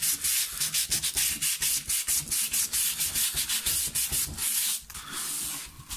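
400-grit wet-and-dry sandpaper rubbed back and forth in quick short strokes over an oiled, rusty metal bracket, scratching away the corrosion. The strokes grow lighter and softer near the end.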